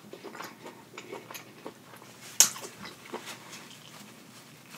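Close-miked mouth sounds of someone eating shrimp in butter sauce: soft wet smacks and chewing clicks, with one sharp, much louder click about halfway through.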